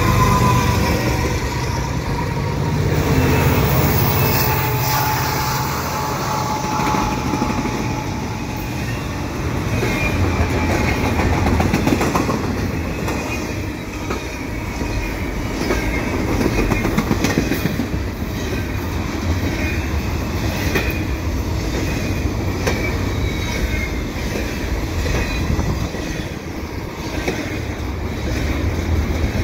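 A Canadian Pacific freight train of diesel locomotives and double-stack container cars passing close by. A heavy engine rumble fills the first several seconds as the locomotives go by. After that comes a steady loud rattle and clickety-clack of the cars' wheels over the rails, with faint high squeals from the wheels.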